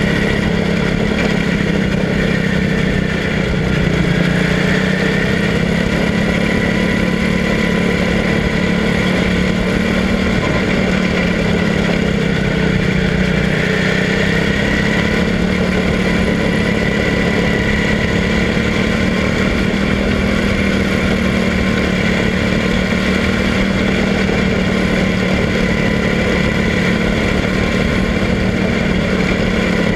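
Quarter midget race car's small single-cylinder engine running steadily at racing speed, heard close up from on board, its pitch rising and dipping slightly through the laps.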